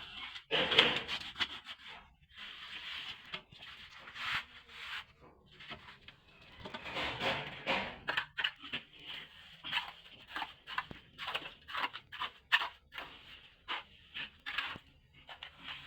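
Repeated scraping strokes of a plastering tool working plaster across a wall: a few longer sweeps at first, then quicker short strokes about one to two a second.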